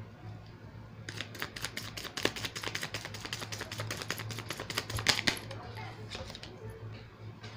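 A rapid run of light clicks and taps that starts about a second in and stops about five and a half seconds in, over a steady low hum.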